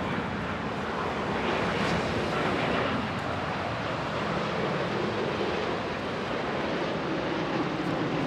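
Boeing 787-8 Dreamliner on final approach with its gear down: a steady rush of jet engine and airflow noise as it passes low overhead.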